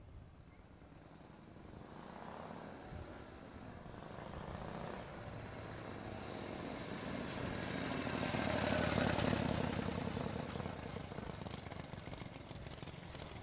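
Harley-Davidson Shovelhead V-twin motorcycle approaching and riding past. The engine grows steadily louder, is loudest about nine seconds in as it passes close, then fades as it rides away.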